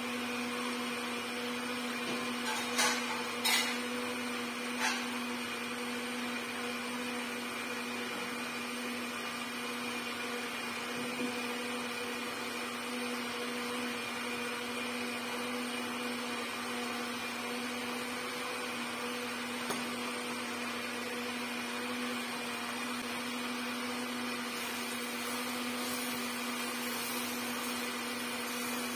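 A steady electric motor hum runs throughout, over a faint even hiss. There are a few light knocks of a wooden spatula against the pot about three to five seconds in, as the shrimp paste is stirred.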